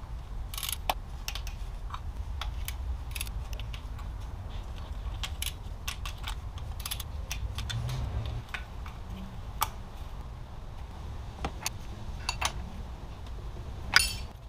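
Hand-tool work on an engine: irregular clicks and clinks of a ratchet wrench and metal parts being handled, over a low steady rumble, with a sharper clatter near the end.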